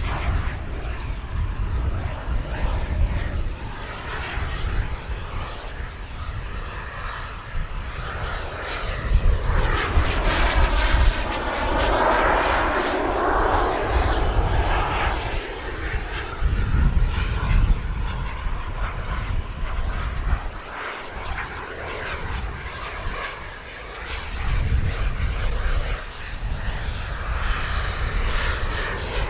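Twin model jet turbines of a radio-controlled Skymaster A-10 Warthog in flight, a steady rushing whine with a thin high whistle. It swells as the jet sweeps past about ten seconds in, fades away after about twenty seconds, and builds again near the end as it comes closer.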